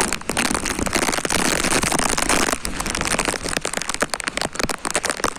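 Heavy rain coming down hard: a steady hiss thick with the clicks of individual drops striking close by.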